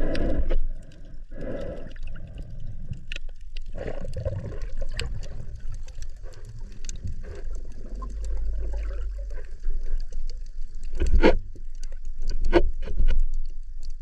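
Sea water sloshing and gurgling around a spearfisher's camera, over a steady low rumble, with a few sharp knocks near the end.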